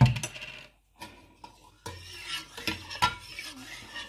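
A spoon stirring in a container, clinking and scraping against its sides, after a single thump at the start.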